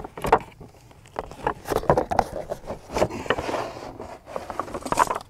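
Cardboard box being opened and shaken out, with irregular rustling, scraping and light knocks as the kit's parts slide out of it.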